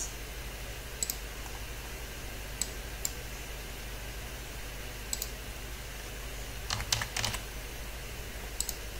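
Scattered computer keyboard and mouse clicks, a handful spaced out and a quick run of several about seven seconds in, over a low steady hum.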